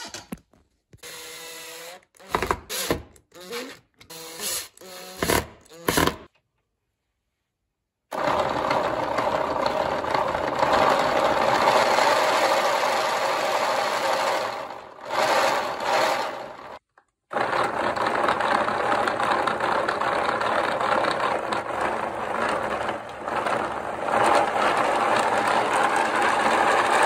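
A few brief clips of knocking and handling, then the wooden model car's drivetrain running steadily under a cordless drill: the drill motor whirring with wooden gears clattering through the gearbox and odometer counter, waxed to run smoothly.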